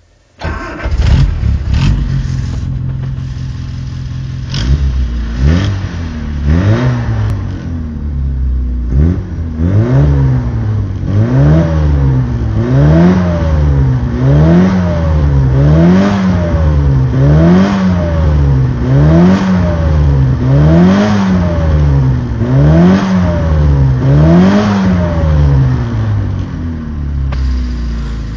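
A Mini Cooper's engine starts, idles for a few seconds, and is then revved up and down over and over, about once every second or two. It settles back to a steady idle near the end.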